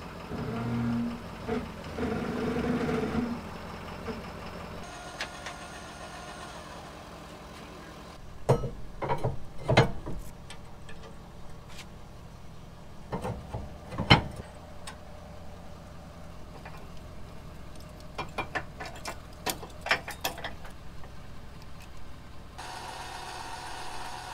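Pickup truck engine idling during the first few seconds as the truck backs up to the trailer hitch. Then come sharp metal clanks and clicks, the loudest about fourteen seconds in, as the trailer hitch is coupled. Near the end a steady motor whirs for a couple of seconds.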